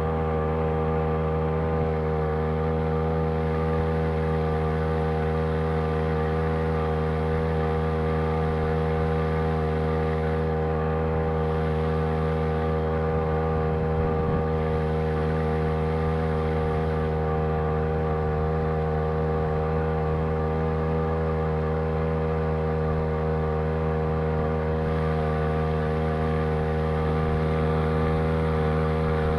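Two-stroke outboard motor built from a Champion T516 trimmer engine on a Sailor 2.0 lower unit, running at a steady high speed. It is a constant, unchanging whine throughout.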